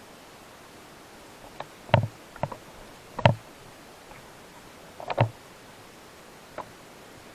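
A series of sharp knocks, about seven, irregularly spaced, some single and one a quick pair, over a steady hiss.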